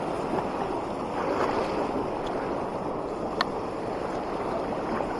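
Mountain trout stream rushing steadily over stones, with one short click about three and a half seconds in.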